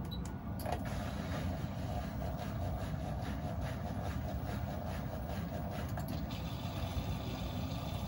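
Miele front-loading washing machine filling with water at the start of its pre-wash: a steady rush of water with a low hum, setting in just under a second in.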